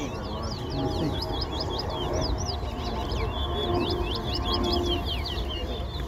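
A caged towa-towa seed finch singing two quick runs of sharp whistled notes that sweep up and down, with a short break between the runs.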